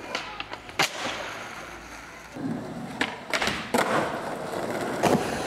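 Skateboard on concrete: a sharp clack of the board about a second in, then wheels rolling across the ground with several more clacks of the board hitting the concrete.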